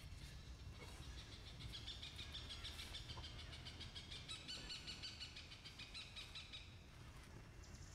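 Faint outdoor ambience with an animal's high, rapidly pulsing trill. The trill starts about a second and a half in, lasts about five seconds, and stops near the end, over a low rumble.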